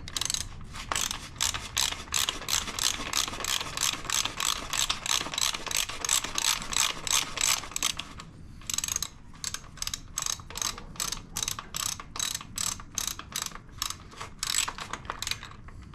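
Ratchet wrench clicking steadily, about four clicks a second, as it turns a bicycle bottom bracket cup into the frame. The clicking pauses about eight seconds in, then resumes until near the end.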